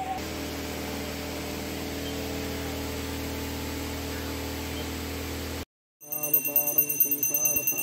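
A steady electrical hum for the first five or so seconds, then after a brief cut a puja handbell ringing continuously while a man chants mantras during the lamp-waving aarti.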